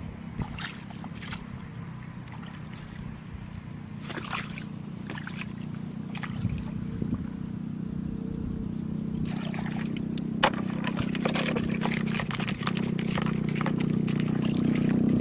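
Hands sloshing and squelching through shallow muddy water while groping in the mud for fish, with wet splashes and crackles that come thickest in the second half. Under it runs a steady low hum that grows louder toward the end.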